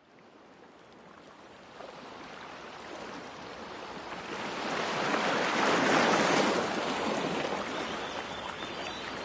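Sea waves washing: a rush of water noise that fades in from silence, swells to a peak about six seconds in, then eases off.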